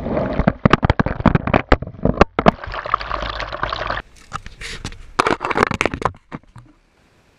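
A sea wave breaking over the rocks and washing across a rock-mounted action camera, water splashing on the microphone with many small clicks. About four seconds in it cuts to knocks and scrapes as the camera is handled against rock, then near silence shortly before the end.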